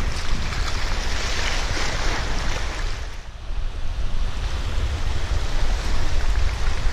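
Small waves washing over rocks at the shoreline, with wind buffeting the microphone. About three seconds in the wash of the waves drops back and the low wind rumble takes over.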